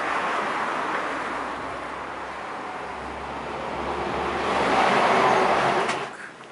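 Road traffic passing: the noise of a vehicle swells to its loudest about five seconds in, then falls away quickly.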